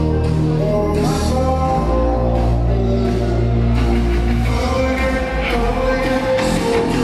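Dance music playing steadily, with a heavy bass line and long held melody notes.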